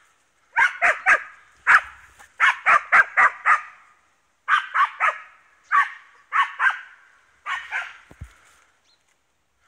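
An East Siberian Laika barking at bay on a wild boar: loud, sharp barks in quick bunches of two to four, which stop about eight seconds in.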